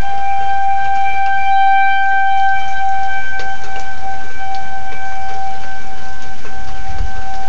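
Outdoor tornado warning siren sounding a steady, unbroken tone: a warning that a tornado is near. A brief low rumble comes near the end.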